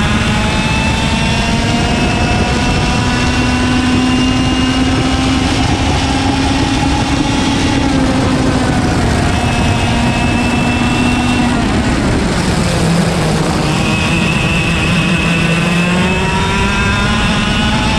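Single-speed IAME KA100 two-stroke kart engine at racing speed, heard onboard over wind and tyre noise. Its pitch climbs steadily for the first several seconds, drops about eight seconds in and again around twelve seconds, then climbs once more as the kart accelerates out of the turn.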